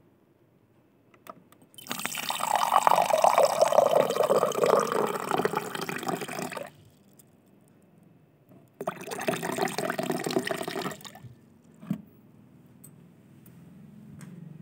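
Water running or pouring in two spells, the first about five seconds long starting about two seconds in, the second about two seconds long later on; both start and stop abruptly.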